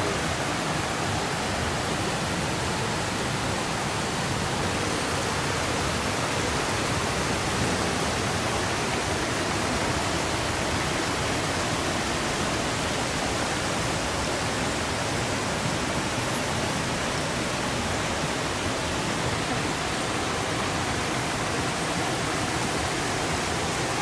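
Rushing water of a rocky rainforest stream tumbling over boulders and small cascades: a steady, unbroken rush.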